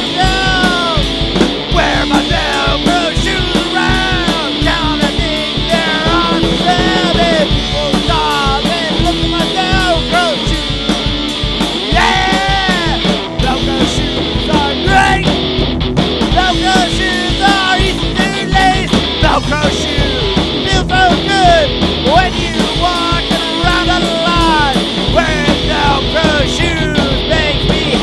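Punk rock song playing loud and continuous, with distorted electric guitar and a steady, driving beat.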